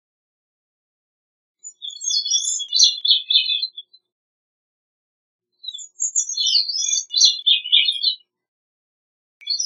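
Gray-cheeked thrush singing: two separate song phrases of about two seconds each, with a third beginning near the end.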